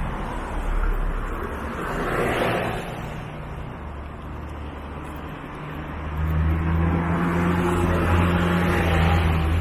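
Road traffic: a car passes with a rush of tyre noise about two seconds in. From about six seconds a minibus's engine hum grows loud and steady as the bus draws near.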